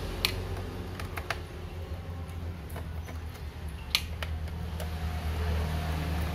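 Scattered sharp clicks and taps of a screwdriver and small screws on the plastic bottom case of an Acer E1-471 laptop being unscrewed, the loudest click about four seconds in as a screw drops into a plastic tray. A steady low hum runs underneath.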